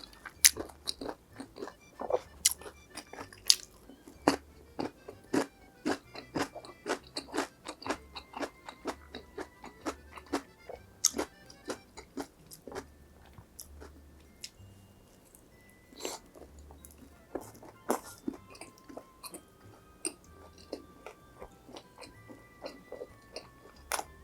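Crisp crunching bites and chewing of fried food, dense in the first half and sparser later, over light background music.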